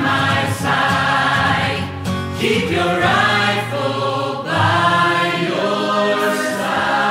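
Music with a choir singing long held notes that change about every second or two.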